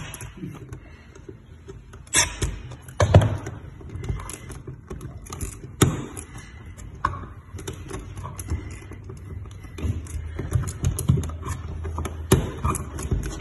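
Scattered clicks and light knocks of hand tools and wire being worked onto an electrical outlet's terminal screw, as the white neutral wire is fastened to the silver terminal.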